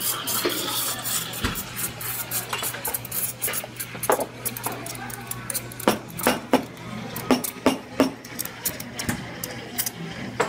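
Stainless steel milk pitchers and cups clinking and knocking against each other and the espresso bar, a run of sharp irregular taps over a steady low hum.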